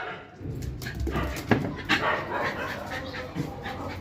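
Pet dog giving a few short barks, the sharpest two about a second and a half and two seconds in.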